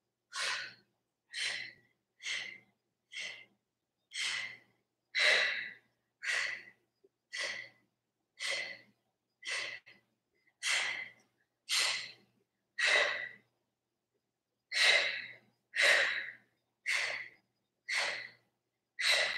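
A woman breathing hard from exertion: short, forceful exhales about once a second, in rhythm with knee pulses in a plank, with one brief pause about two-thirds of the way through.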